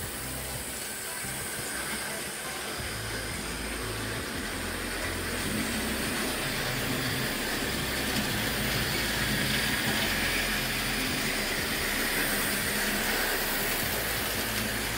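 Hornby 00-gauge model train running on its track: a steady whir and rattle from the small electric motor and the wheels on the rails, growing louder through the first half.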